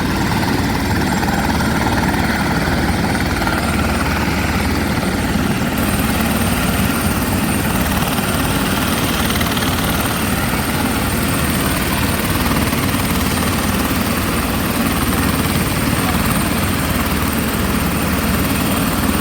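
Helicopter running close by: a loud, steady rotor chop with engine noise.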